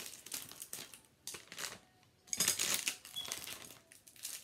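Plastic packaging crinkling and rustling as it is handled, in uneven bursts with the loudest stretch a little past halfway.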